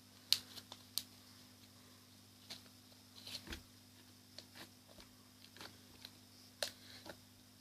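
Slime being handled, making faint, irregular small clicks and pops, about ten in all, over a faint steady hum.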